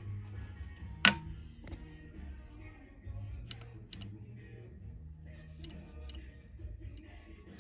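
Background music with a steady low beat, over which come several sharp clicks, the loudest about a second in.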